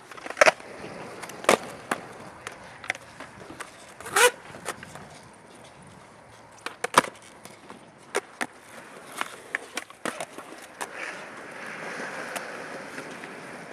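Skateboard wheels rolling on concrete, broken by sharp knocks and clacks of the board hitting the ground several times. The rolling grows a little louder near the end.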